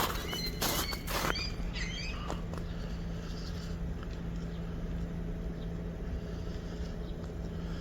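Footsteps crunching in snow for the first second and a half, with small birds giving short chirps. After that only a steady low hum remains.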